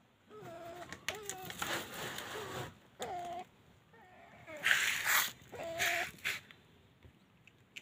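A cat gives a string of short meows, about seven in all, each brief and fairly level in pitch, spaced half a second to a second apart. A loud burst of rustling noise about five seconds in is the loudest sound, with a softer one around two seconds in.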